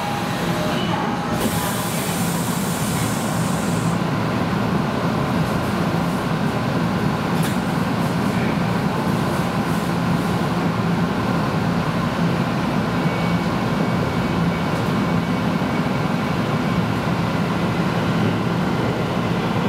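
Electric commuter train running, heard from inside the passenger car: a steady rumble and hum, with a brief hiss about two seconds in.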